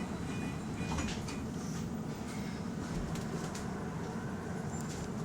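Inside a moving electric bus: a steady low rumble of the bus in motion, with scattered rattles and clicks from the cabin fittings. A faint high tone sounds in about the first second.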